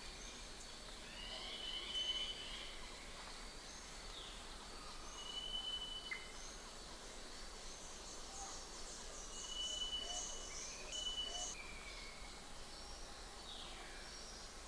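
Birds calling over a steady soft background hiss: several long, clear whistled notes, a few downward-sliding calls, and a quick high trill about ten seconds in.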